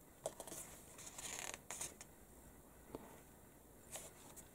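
Faint handling of a magazine's glossy paper pages: a few light clicks and ticks, and two brief swishes of a hand sliding over the paper a little past one second in.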